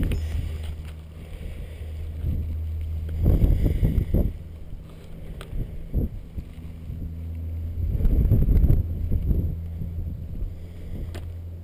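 Wind buffeting the microphone of a camera on a moving mountain bike, with two strong gusts about three and eight seconds in, over a steady low hum and a few small knocks from the bike.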